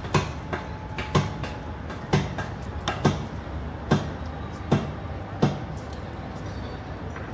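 Seven loud, sharp knocks about one a second, over steady outdoor background noise; they stop about five and a half seconds in.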